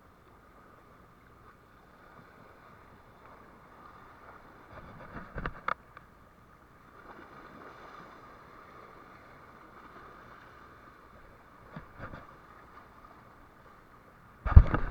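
Boat at sea: a steady faint hum over water and wind noise, with a few knocks in the middle and a sharp, louder knock near the end.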